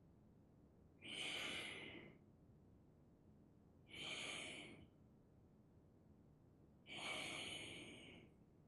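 Three slow, audible exhalations about three seconds apart, each a breathy outward rush about a second long that tails off, in time with the stick movements of a qigong exercise.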